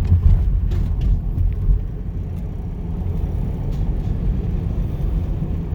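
Van driving down a road, heard from inside the cab: a steady low rumble of engine and road noise, with a few short knocks in the first two seconds.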